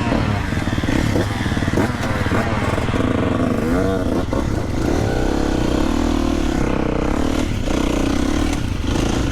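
Motocross bike engine running at low revs while being ridden off slowly; the revs rise and fall about four seconds in, then hold fairly steady.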